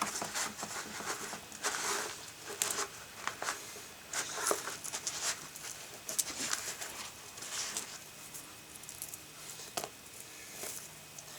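Hands digging and rummaging through damp potting soil and potato plant stems, giving irregular scratching and rustling.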